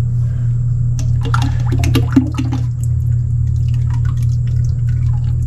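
Engine oil splashing and dribbling into a drain pan as the spin-on oil filter comes off a New Holland TS110 tractor, with a cluster of clicks and knocks from handling the filter about a second in. A steady low hum runs underneath.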